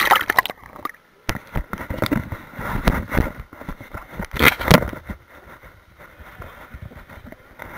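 Splashing, bubbling and knocking of water and swimmers picked up by a waterproof camera at and below a swimming pool's surface during an underwater hockey game, coming in irregular bursts of crackling clicks.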